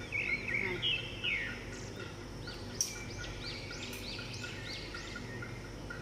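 African grey parrot chirping: a few falling chirps in the first second and a half, then a run of short arched chirps, about three a second, through the middle, with one sharp click near the middle.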